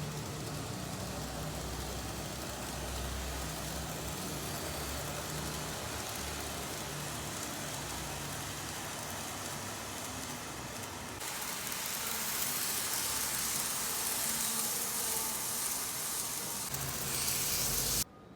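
Steady mechanical running noise of an N-scale model train setup: a low hum under a broad hiss. It gets louder and brighter about two-thirds of the way through, then cuts off suddenly near the end.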